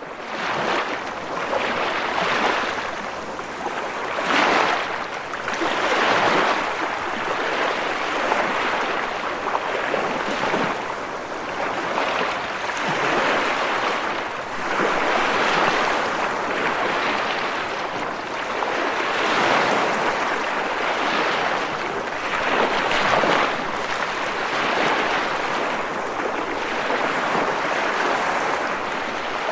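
Waves washing in: a continuous rushing noise that swells and ebbs every few seconds.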